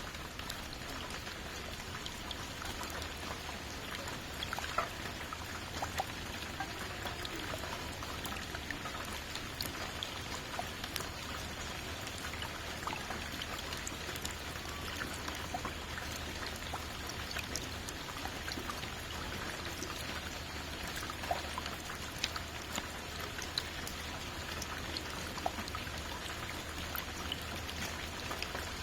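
Steady rain, a constant hiss with many separate drops ticking sharply on a hard surface.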